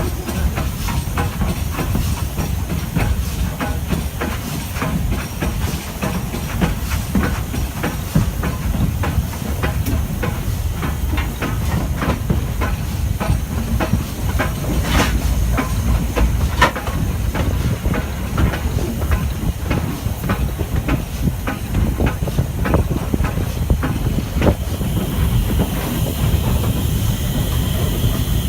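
Stanier 8F 2-8-0 steam locomotive and its train under way: a steady low rumble with steam hissing and a dense, irregular run of clicks and knocks. About 25 seconds in, a higher, steady hiss sets in.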